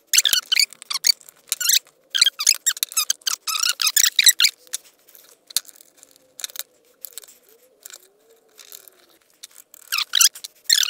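Small screwdriver working the screw terminals of a contactor and a pushbutton box, with wires being pushed in: clusters of quick scraping rasps and clicks, heaviest in the first few seconds and again near the end, with a faint squeak between.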